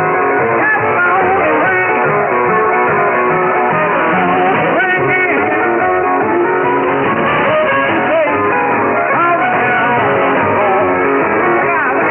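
Guitar music from a pirate radio broadcast received on AM shortwave at 6925 kHz. It plays continuously, sounding thin because the reception carries nothing above about 3.5 kHz.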